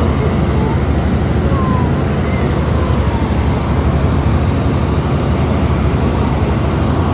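Helicopter cabin noise: the engine and rotor make a steady low drone with a fast, even rotor beat, heard from inside the cabin.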